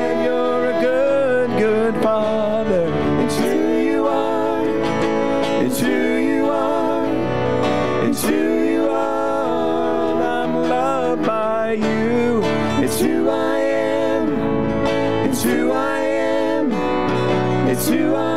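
Live worship song: two women singing with microphones over instrumental accompaniment with a steady beat, their held notes wavering with vibrato.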